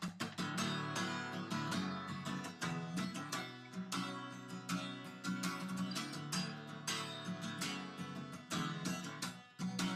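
Acoustic guitar strummed rhythmically in an instrumental passage with no singing, with a brief dip about nine and a half seconds in.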